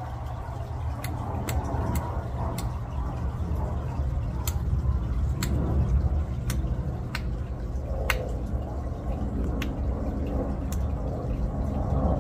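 A mantis shrimp clicking as it strikes at its food in an aquarium: about a dozen sharp clicks at irregular intervals. Under them runs the steady hum and water trickle of the tank's pump.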